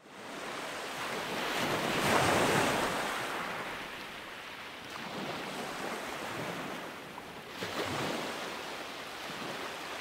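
Choppy sea water sloshing, with wind gusting across the microphone; the sound swells about two seconds in and again near eight seconds.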